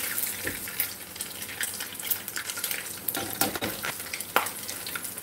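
Salmon patty batter sizzling and crackling in hot oil in a cast-iron skillet as tablespoons of it are dropped in, with a few sharp clicks of the metal spoon against the pan, the loudest about four seconds in.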